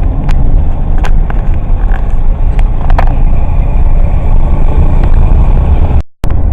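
Loud, steady rumble of a moving vehicle's road and wind noise, heaviest in the low end, with a few faint clicks. It cuts out abruptly about six seconds in.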